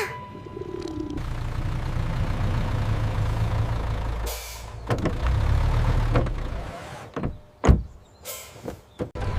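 Sound effects of a large machine arriving: a steady low engine rumble, a hiss of released air about four seconds in, then a few heavy thumps and a second hiss near the end.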